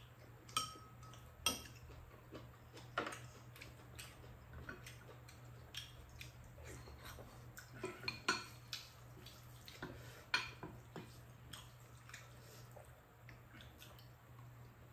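Spoons and chopsticks clinking and scraping against ceramic bowls as two people eat: irregular sharp clicks, a few louder than the rest, over a low steady hum.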